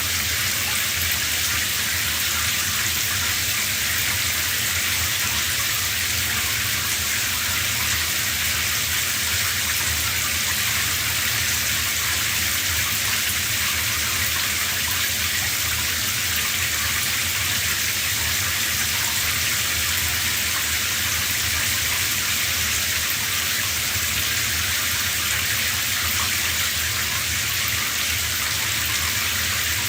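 Shower running steadily: an even spray of water hissing down without a break.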